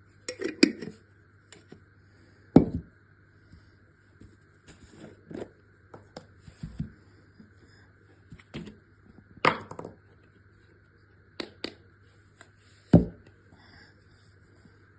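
Spoon and spice containers clicking and knocking against a bowl as spices are measured into the chicken, about eight separate sharp knocks spread over the stretch, over a steady faint hum.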